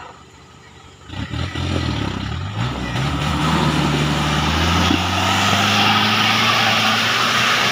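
Off-road Suzuki Jimny's engine under heavy load on a steep climb: it picks up about a second in, revs rise over the next few seconds, and it then holds at high revs.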